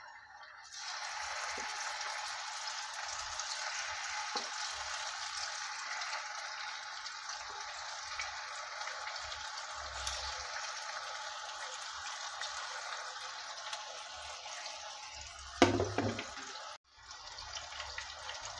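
Pumpkin-leaf pakoda slices shallow-frying in hot oil in a karahi, a steady sizzle that picks up about a second in as the pieces go into the oil. A short, louder knock-like sound comes near the end.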